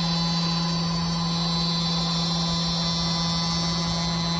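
CNC router spindle fitted with an angle head for horizontal side drilling, running steadily: a constant low hum under a high-pitched whine.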